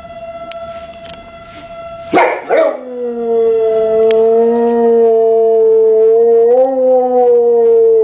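A tornado siren sounds a steady tone. About two seconds in there is a brief loud burst, and a Dogue de Bordeaux breaks into one long, loud howl of about five seconds that lifts slightly in pitch near the end, drowning out the siren.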